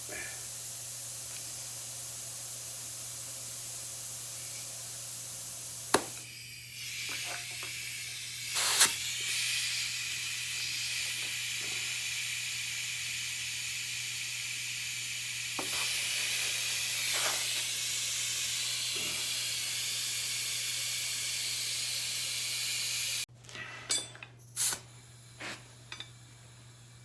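Compressed air hissing steadily into a motorcycle tire through an air chuck while trying to seat the bead on an aluminum rim. A few sharp clicks come through the hiss; it cuts off suddenly near the end, followed by several knocks and clicks.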